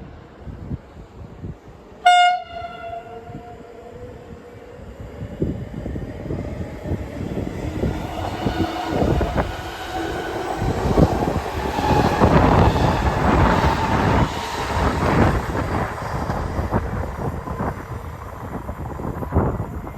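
A train horn gives one short, loud blast about two seconds in, ringing out briefly. A train then approaches and passes close by, the rumble and clatter of its wheels on the rails growing to their loudest about halfway through.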